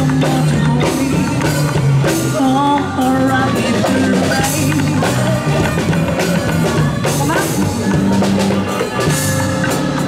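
Live band music: drum kit keeping a beat under a bass guitar line, with a melody over the top.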